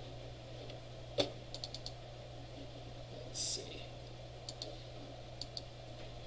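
Computer mouse and keyboard clicks. One sharp click comes about a second in, followed by a quick run of four clicks, then pairs of clicks later on. A short hiss comes a little after the middle, and a steady low hum runs underneath.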